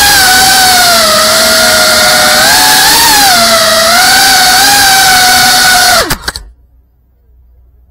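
FPV quadcopter's motors and propellers whining at close range, the pitch rising and falling with throttle. About six seconds in the pitch drops sharply, there are a few knocks, and the motors stop as the drone comes down.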